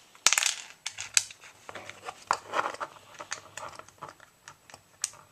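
Small plastic loader parts being handled: a run of irregular clicks and scrapes with some rustling, loudest just under half a second in.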